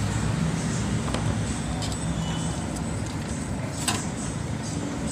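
Steady low background rumble with a faint hum, and a few light clicks, the clearest about four seconds in.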